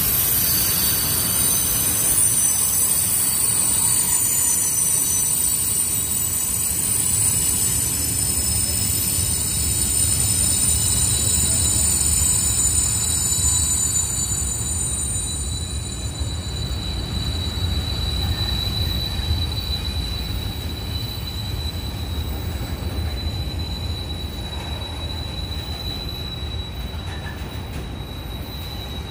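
Freight train of Eanos open bogie wagons rolling past at low speed: a steady low rumble from the wheels with a high-pitched squeal held over it, which grows fainter in the second half as the rumble slowly eases.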